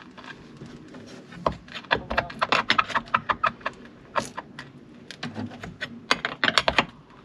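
Hand tools clicking and clinking against the metal mounting bolts of a boat's anchor windlass as they are worked loose, in two spells of quick clicks, one about two to three seconds in and another near the end.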